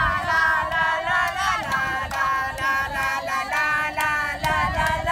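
High-pitched singing voice holding notes that shift in pitch, as in a song.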